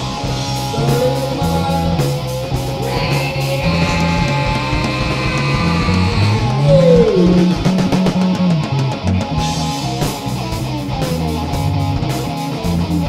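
Heavy rock music: a guitar riff over bass and drums. The drums drop out for several seconds in the middle, and a guitar note slides down about seven seconds in.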